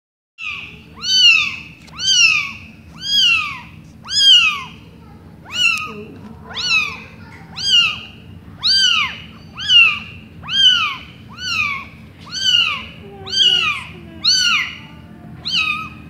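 Newborn kitten meowing over and over, about one high-pitched call a second, each call rising and then falling in pitch.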